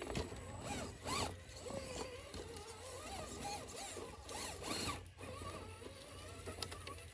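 Scale RC crawler truck's small electric motor and geared drivetrain whining in short throttle bursts, the pitch rising and falling with each blip as the truck crawls over logs.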